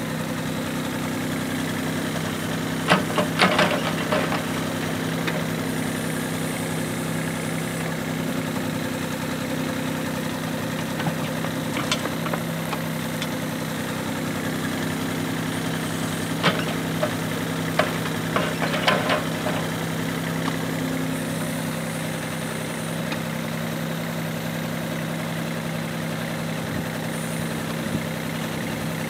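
Yuchai YC15-7 mini excavator's diesel engine running steadily while it digs, with short bursts of clattering and knocking as the bucket works into the soil pile: about three seconds in, briefly around twelve seconds, and again from about sixteen to nineteen seconds.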